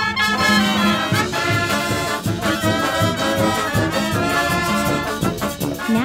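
Street brass band playing: trumpets, trombones and saxophones sounding together over a steady drum beat.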